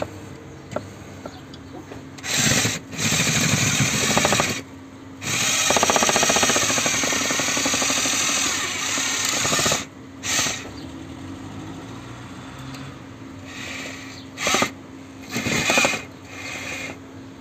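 Rotary hammer (perforator) turning a long horizontal auger rod into the soil. It runs in bursts: two short runs, a long run of about five seconds in the middle, then a few brief blips near the end. A faint steady hum continues underneath.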